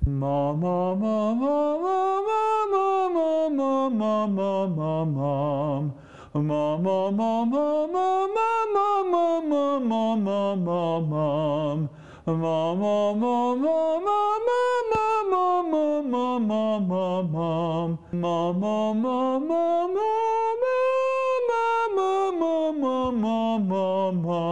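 A man's singing voice sliding in four long glides, about six seconds each, each rising smoothly from low in his range through the break into the upper range and sliding back down, the later peaks a little higher than the first. These are vocal sirens demonstrating a connected passage through the passaggio without a crack.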